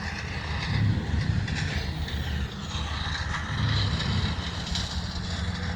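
A motor engine running steadily in the background, a low, even rumble: typical of the trucks and heavy equipment of a disaster cleanup.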